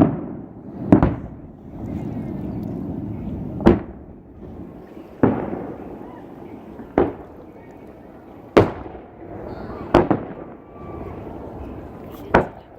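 Aerial fireworks shells bursting: about seven sharp booms a second or two apart, each trailing off in an echo.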